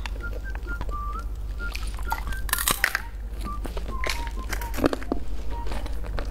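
A simple background tune of plain, beep-like tones, with small clicks and mouth noises from eating hard candy, and a short breathy rush about two and a half seconds in.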